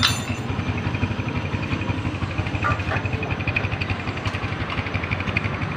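Kawasaki Barako 175's single-cylinder four-stroke engine idling steadily after a top overhaul with new piston rings and lapped valves. It runs quietly and evenly, with no rattle.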